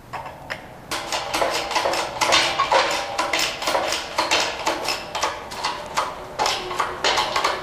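Shop press forcing a worn ball joint out of a Mazda Miata front upper control arm: a quick, uneven run of metallic clicks and creaks with a faint ringing, starting about a second in.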